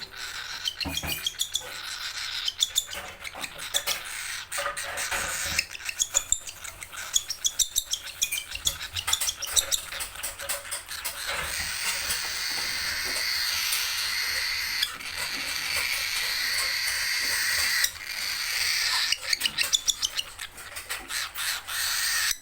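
Baby cockatiel's harsh, raspy begging calls, the hungry chick's food-begging noise. The calls come as fast sharp clicks and wheezes, and become one long continuous rasp for several seconds in the middle.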